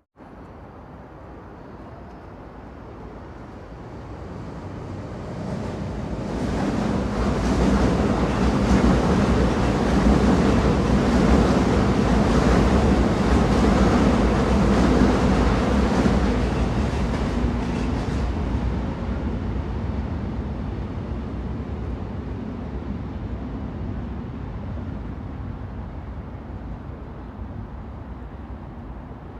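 A train passing by: a rumble that builds from about four seconds in, is loudest for about ten seconds with a steady hum under the clatter, then slowly fades away as it recedes.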